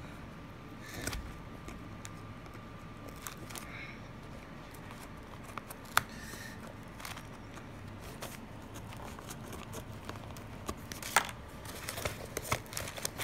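Paper and packaging being handled close up: light rustling with scattered small clicks, one sharp click about six seconds in, and a busier run of crinkling and clicks near the end.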